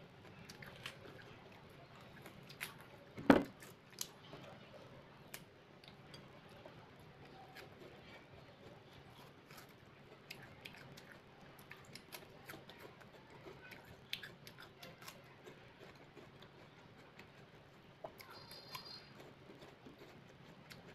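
Wax apples (rose apples) being bitten, chewed and pulled apart by hand, giving many small crisp crunches and clicks. One sharp loud knock comes about three seconds in.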